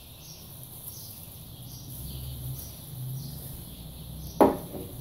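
A wooden spatula knocks once, sharply, against a non-stick karahi of fried potato cubes about four and a half seconds in. Before it there is only a faint background with a soft high chirp repeating about every half second.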